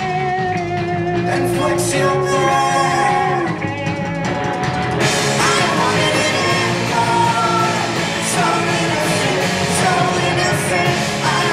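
A punk rock band playing live, with a singer over electric guitars and drums. The sound fills out in the high range about five seconds in.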